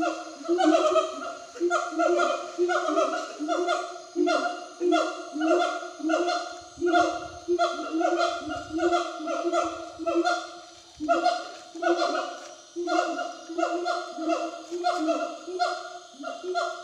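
Gibbons calling in a long run of short, repeated hoots, about one to two a second.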